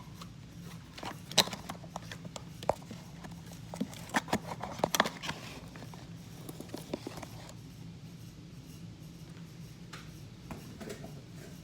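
Hands handling small boxes and packaging: a scatter of sharp clicks, taps and short scrapes, busiest in the first five seconds and sparser after that, over a low steady hum.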